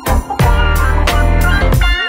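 Instrumental music with a steady beat and heavy bass.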